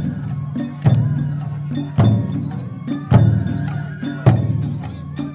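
Japanese festival drumming: a heavy drum struck about once a second with a deep ringing boom, with lighter strokes and sharp clicks between the heavy beats, in a steady repeating rhythm.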